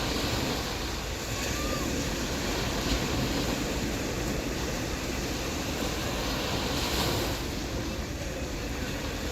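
Sea waves washing onto a beach: a steady rush of surf that swells briefly about three seconds in and again near seven seconds, with wind rumbling on the microphone.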